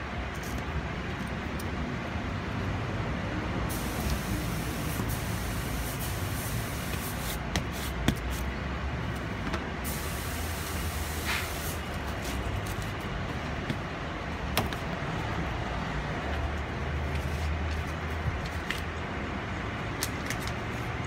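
Hands working on a golf cart seat: a few sharp clicks and two stretches of rustling hiss from tape and the mesh seat cover being handled, over a steady low outdoor rumble.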